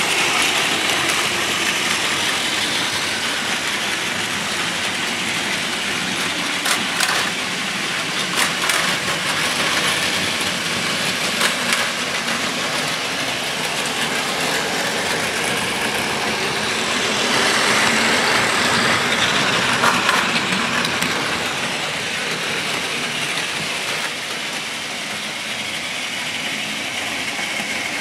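Several Plarail battery-powered toy Shinkansen trains running on plastic track: the steady whine of their small motors and gearboxes mixed with wheel rattle, with a few sharp clicks in the first half. The sound swells for a few seconds a little past the middle.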